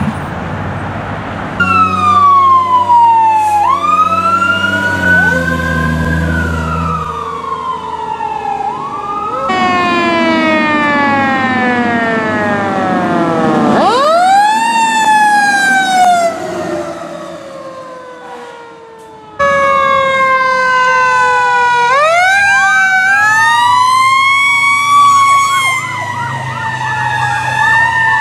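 Fire truck sirens wailing, often two or more at once, with long rising and falling sweeps in pitch. The mix changes abruptly three times as different responding trucks come in.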